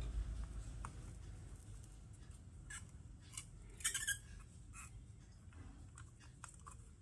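Faint, scattered clicks and scrapes of small hand tools and wire being handled on a circuit board, with a short cluster of louder clicks about four seconds in.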